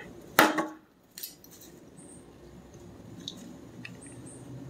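One sharp chop about half a second in, as the blade of a competition chopper knife strikes down through a lid into a wooden board, followed about a second in by a couple of light clicks.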